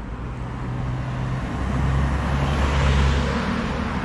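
A car driving past on the road: a low engine hum and tyre rush that build to their loudest about three seconds in, then begin to fade.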